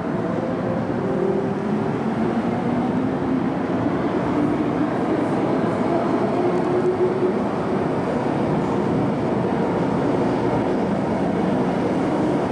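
MTR Island Line train running through the station without stopping, a steady rumble of wheels and motors heard through the platform screen doors, with a faint whine that shifts slowly in pitch.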